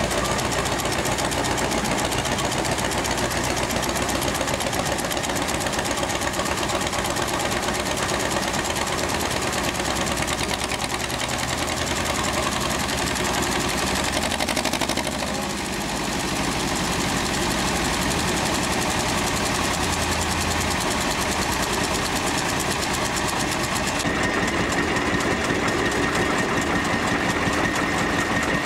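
Small Hudson Hunslet narrow-gauge diesel locomotive's engine running with a rapid, steady knocking beat. Near the end the sound changes and a steady higher whine comes in.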